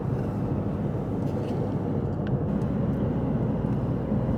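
Steady low rumble of a vehicle in motion, road and engine noise running evenly.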